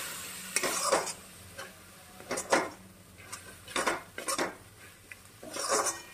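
Steel spatula scraping and knocking against a coated kadai in irregular strokes as a spiced masala paste is stirred and fried down until the oil begins to separate.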